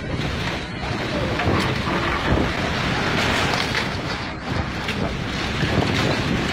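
Storm wind blowing hard and buffeting the microphone, rising and falling in gusts.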